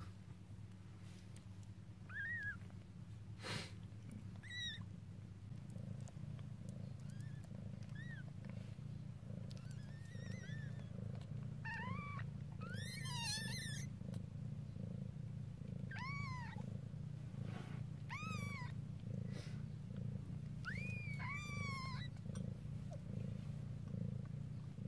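Mother cat purring steadily. Over the purr, newborn kittens give short, high, thin mews that rise and fall every few seconds, with a quick run of them about 13 seconds in.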